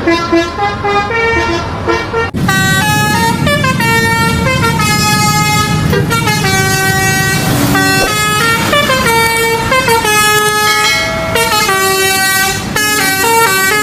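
A 'telolet' musical air horn playing a tune of short stepped notes, over a low rumble. About two seconds in it cuts to another louder horn tune, which carries on.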